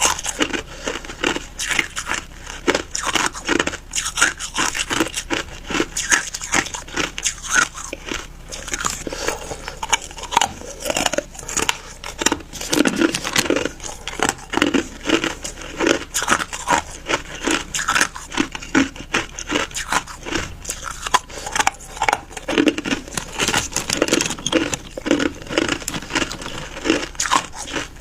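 Close-up biting and chewing of ice, hard ice cracking and crushed ice crunching between the teeth in a quick, irregular run of crunches.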